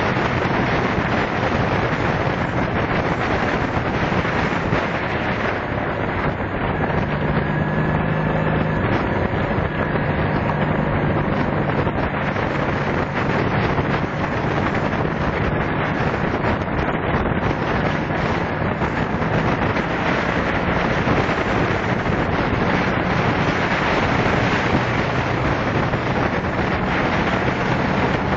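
Wind rushing over the microphone of a motorcycle riding at road speed, with the steady drone of its engine underneath.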